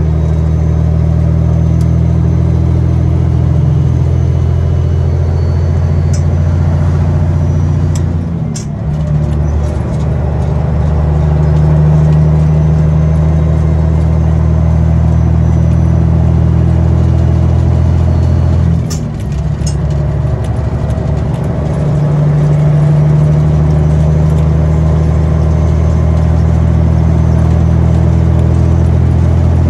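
Caterpillar 3406B inline-six diesel of a semi truck pulling on the highway, heard from inside the cab as a steady low drone. Twice, about 9 and 19 seconds in, the engine note falls and dips briefly, as at a gear change, with a few light clicks, then comes back on.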